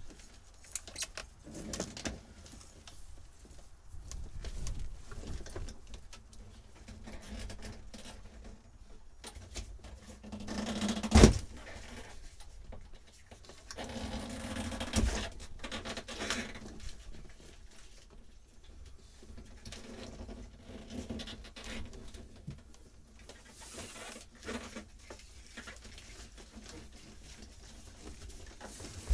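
Handling noises from pulling old wiring out of a boat: irregular rustling and small clicks, with one sharp knock about eleven seconds in.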